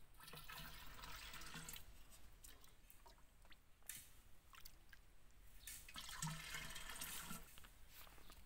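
Muddy water poured from a tin can into an earthenware water pot, twice, each pour lasting a second or two, with a few small knocks and splashes in between as the can dips back into the puddle.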